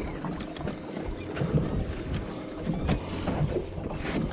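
Wind on the microphone and water lapping against a small boat, with scattered faint clicks as a spinning rod and reel are handled.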